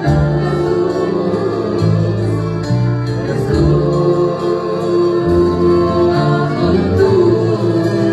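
Arabic Christian worship music: a sung hymn with choir-like voices over instrumental backing with a moving bass line.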